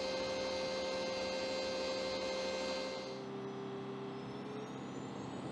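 Steady machinery hum on an aircraft flight line, made up of several held whining tones. About three seconds in, the main tone drops to a lower one, and near the end a faint rising whine begins.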